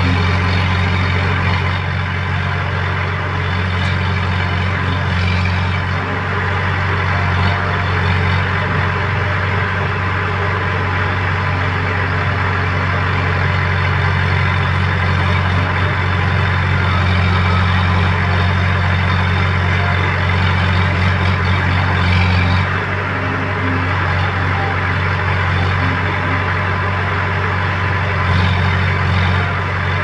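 Heavy diesel engines of a JCB backhoe loader and a farm tractor running steadily at low revs, a constant deep engine note with a few brief swells.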